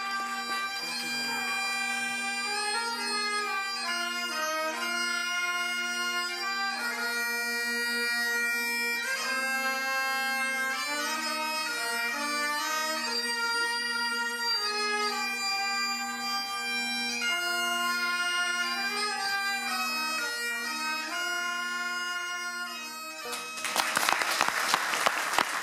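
Highland bagpipes playing a tune over their steady drones, with a trumpet playing along. The music stops about 23 seconds in and applause breaks out.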